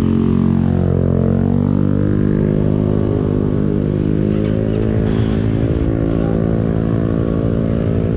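Motorcycle engine running steadily under way, its pitch dipping briefly and recovering about a second in.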